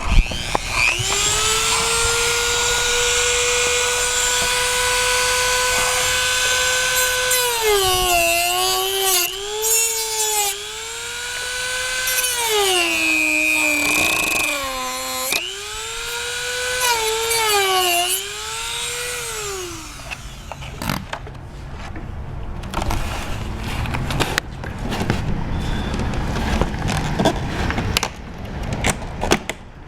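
Corded Dremel rotary tool with a reinforced cutoff wheel spins up to a steady high whine, then cuts into the hard plastic gussets of a door handle, its pitch dipping and recovering again and again as the wheel bogs under load. It winds down about two-thirds of the way through, and irregular knocks and scrapes follow.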